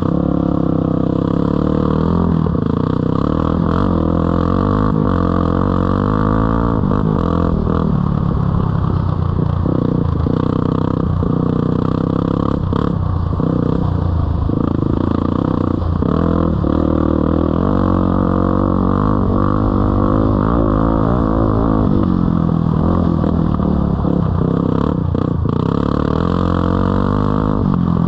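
Four-stroke dirt bike engine running under way, close to the rider. Its pitch rises and falls with the throttle, and there are several short dips as the throttle is rolled off or the gears change.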